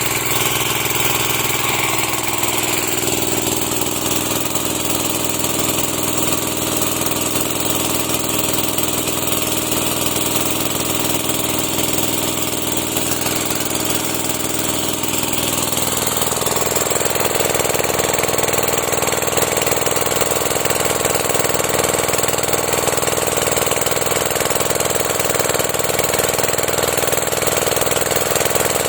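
Sanchin MS30 engine-driven power sprayer running steadily. About halfway through its sound shifts: one tone drops slightly and the sound grows fuller.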